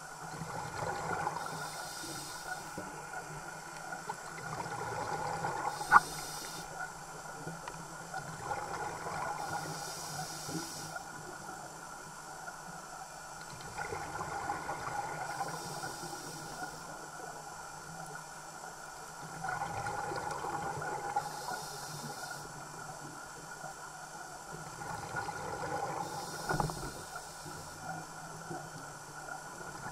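A scuba diver breathing through a regulator underwater: a hiss with each breath and a rush of exhaled bubbles, repeating in slow cycles about every five seconds. A single sharp click comes about six seconds in.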